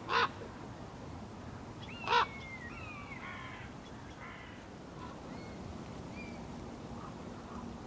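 Crows cawing, two loud harsh caws about a fifth of a second and two seconds in, with fainter falling mewing calls of common buzzards just after the second caw and a few faint calls later.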